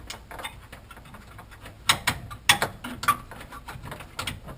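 Sharp clicks and knocks of a washer-dryer's control-panel cover parts being handled and pressed into place, the loudest a little under two seconds in and again about half a second later.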